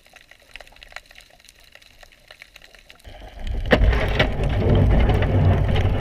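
Faint scattered underwater clicks and crackles. About three seconds in, a loud, rumbling rush of water noise sets in as the underwater camera is moved.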